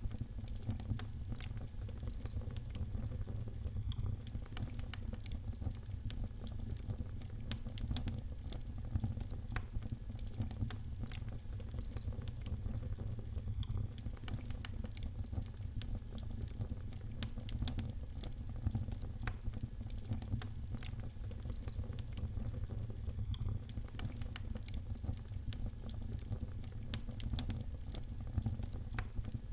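Wood fire crackling: irregular small pops and snaps over a steady low rumble of the flames.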